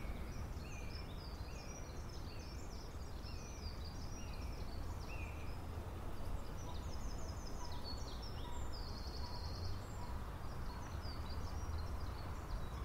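Small birds singing over a steady low background rumble: one bird repeats a short falling note roughly once a second for the first five seconds, with other high chirps throughout and a brief fast trill a little past the middle.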